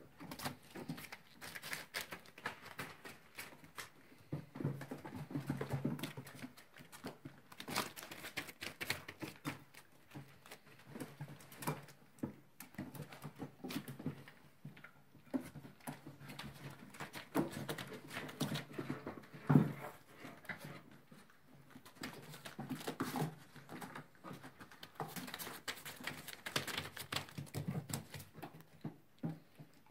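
Chocolate Labrador Retriever puppies scrambling over wooden boards and newspaper: an irregular patter of paws and claws with crackling paper, broken by sharper knocks now and then.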